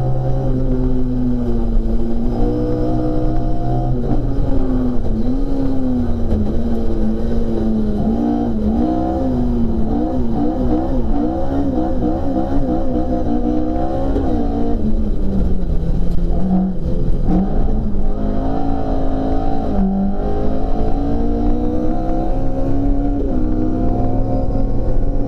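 Ford Escort RS1800's Cosworth BDA twin-cam four-cylinder engine, heard from inside the cockpit, driven hard on track with its pitch rising and falling through the gear changes. It drops to its lowest about two-thirds through, then climbs again as the car accelerates up through the gears.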